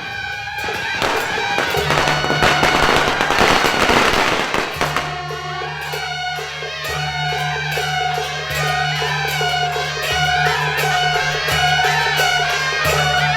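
Traditional-style music. Dense crackling like firecrackers fills the first few seconds, then a wavering melody plays over a steady low drone.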